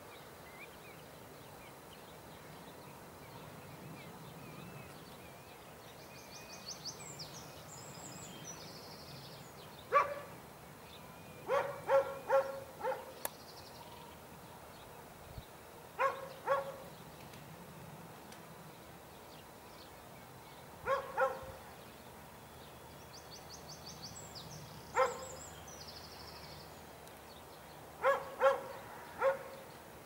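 Gadwall quacking: short calls, singly and in runs of two to four, about a dozen in all, starting about ten seconds in, the first the loudest. A high buzzy trill sounds faintly twice in the background.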